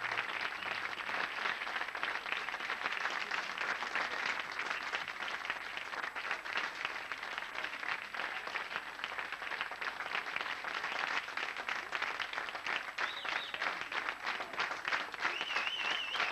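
Studio audience applauding, many hands clapping steadily without a break. A high wavering tone joins near the end.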